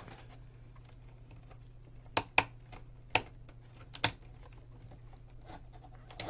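A handful of sharp clicks and taps from metal hardware being handled while the high-voltage capacitor's terminals are freed and shorted together so it cannot build up a charge; two clicks come close together about two seconds in. A steady low hum runs underneath.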